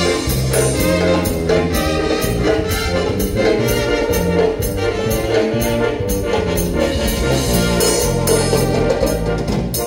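Live band playing an instrumental passage of dance music: brass lines over drums and bass with a steady beat.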